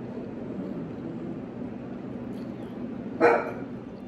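Quiet room noise, then one short, loud pitched call about three seconds in.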